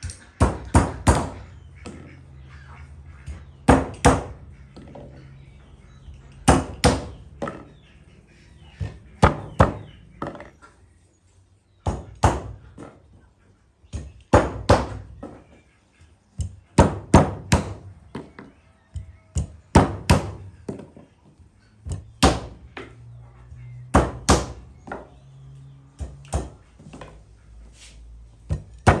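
Hammer striking chestnuts on a wooden log block to crack their shells: sharp knocks in clusters of two to four, every two to three seconds.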